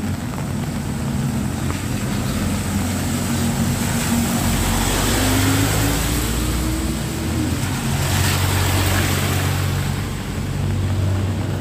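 A car driving past on a wet road: engine hum and tyres hissing on the wet asphalt, swelling as it comes close and loudest about eight seconds in.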